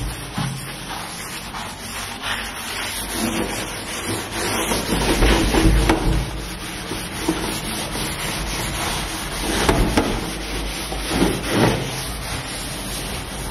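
A sponge scrubbing a soapy, ribbed stainless steel sink drainboard in repeated rubbing strokes.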